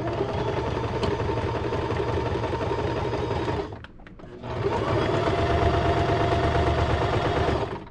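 Small electric sewing machine stitching binding onto a quilted pad: two steady runs of about three and a half seconds each, with a short stop between them.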